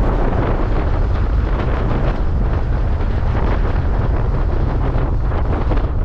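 Wind rushing through a car's open side window at highway speed, buffeting the microphone, over a steady rumble of tyres and road.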